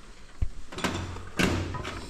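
Engine parts and tools being handled and set back in place: a short dull knock about half a second in, then two louder clattering knocks, the second with a brief metallic ring.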